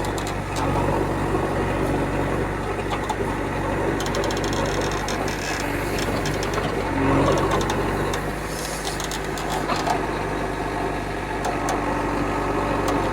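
Diesel engines of a backhoe loader and tractors running at a mud-loading site, the engine note shifting pitch about seven seconds in. Rapid metallic rattling about four seconds in and again near nine seconds.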